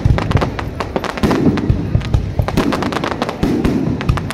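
Fireworks display: aerial shells bursting overhead in quick succession, about four booms roughly a second apart with dense crackling throughout.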